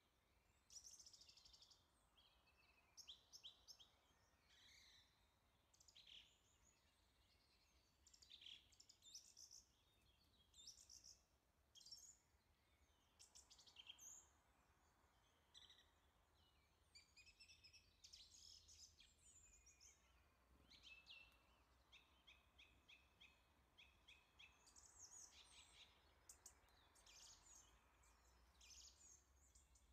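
Near silence, with faint birds chirping and trilling in the background throughout.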